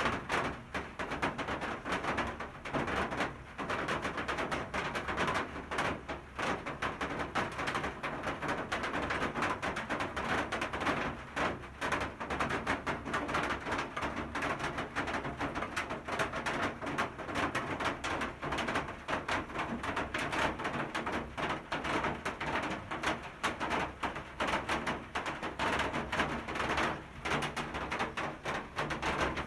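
Rain falling steadily, a dense patter of countless drops striking hard surfaces and leaves.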